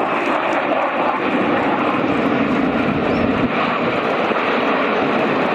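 Military aircraft in flight, its engine noise a steady, unbroken rush.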